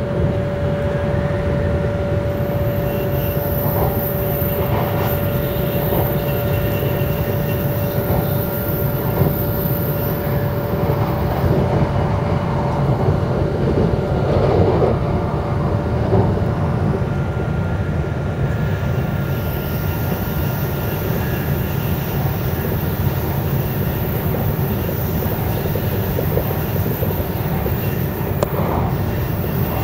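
Steady running noise inside a Shinkansen bullet train car at speed: an even low rumble from the wheels and track, with a thin steady tone through about the first half.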